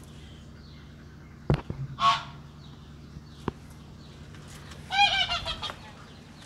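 Domestic waterfowl honking: one short call about two seconds in, then a quick run of several honks about five seconds in. Two sharp knocks come between the calls.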